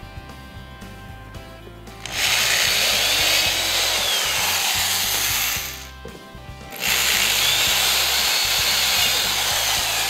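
Corded power drill with a quarter-inch bit boring through a plastic food container and the cooler wall beneath it, in two runs of about three and a half seconds each with a short pause between.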